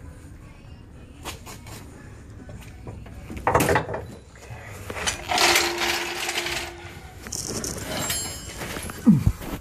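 Steel coil spring clanking and scraping against the tubular control arm and K-member as it is worked into its seat by hand: a string of irregular metal knocks and scrapes, the loudest knock near the end.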